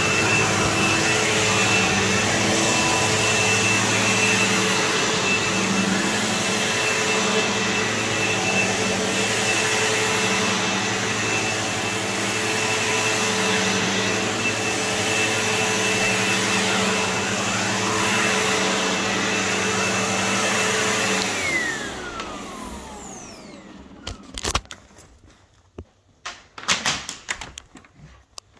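Sebo X4 upright vacuum running steadily on carpet. About three-quarters of the way through its motor winds down with a falling whine, then a few scattered knocks and clicks.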